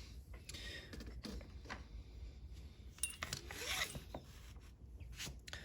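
Scraping and scattered clicks of small metal lock parts being handled as a Clavis lock's core is taken apart, with a longer scrape about three seconds in.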